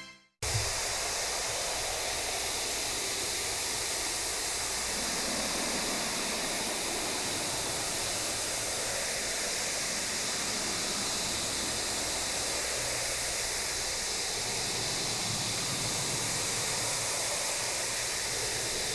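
A steady, even rushing noise with no rhythm or pitch, starting abruptly about half a second in and holding one level throughout.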